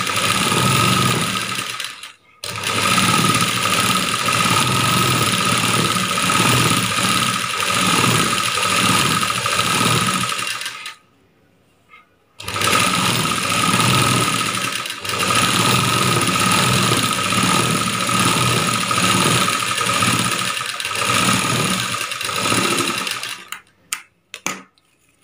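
Sewing machine stitching a quarter-inch folded hem along a fabric binding strip, running in long stretches with a steady high whine. It breaks off briefly about two seconds in, pauses again near the middle, and stops near the end, followed by a few short snips as scissors cut the thread.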